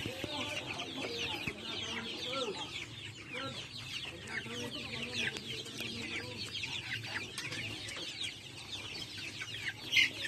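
A crowded flock of young chickens calling all at once: a dense, continuous chorus of short, high, falling peeps over lower clucks, with one louder call near the end.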